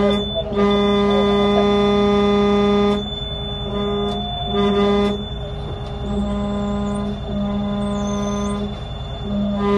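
A steady, low-pitched horn tone sounding in repeated blasts of uneven length, the longest about two and a half seconds, with short breaks between them.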